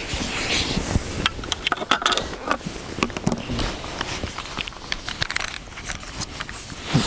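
Campfire crackling and popping in irregular sharp snaps, mixed with scraping and rustling.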